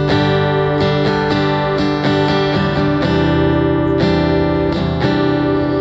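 A guitar strummed in a steady rhythm, moving through chord changes as an instrumental passage between songs.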